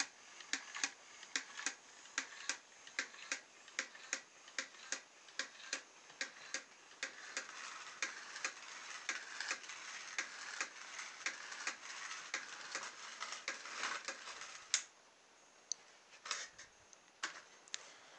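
Small motor of an old DVD drive mechanism whirring while the mechanism clicks steadily, about three times a second, driving the crawlerbot's legs. About fifteen seconds in the whirring stops suddenly, leaving a few separate clicks.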